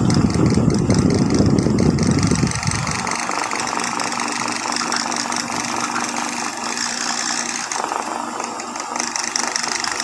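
High-speed industrial sewing machine stitching hard for about the first three seconds, then a steady, quieter machine hum for the rest.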